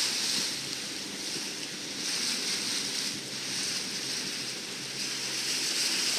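Steady rush of wind and waves at sea, with wind buffeting the microphone, swelling and easing slowly.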